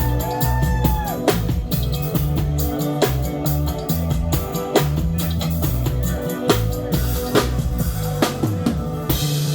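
Live band playing an instrumental groove on drum kit and bass guitar, the drums hitting regularly. About nine seconds in the rhythm stops on a held note with a high wash of sound.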